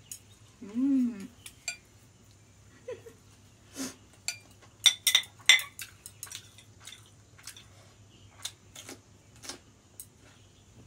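Chopsticks clicking and tapping against a bowl of noodles as they are picked up and eaten: scattered sharp clinks, the loudest cluster about five seconds in. A short hummed "mm" about a second in.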